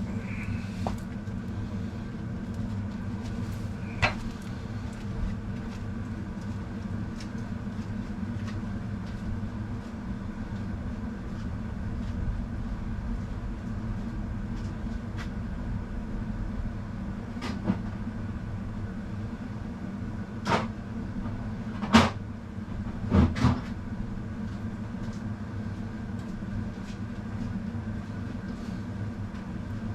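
Steady low hum with a few sharp knocks and clicks scattered through it, several close together a little past twenty seconds in.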